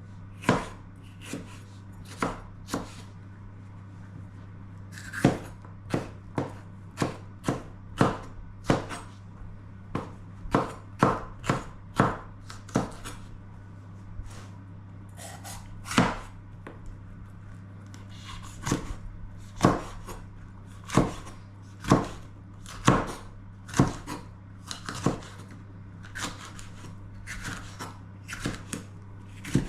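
Kitchen knife chopping bell peppers on a cutting board: irregular sharp knocks, about one or two a second, with a few short pauses.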